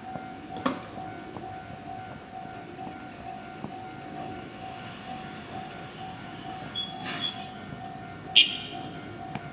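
A slow train of an electric freight car and a Yoro Railway 600-series set passing on the rails. Its wheels squeal loudly for about a second, two-thirds of the way through, and once more briefly near the end, with a single click about half a second in.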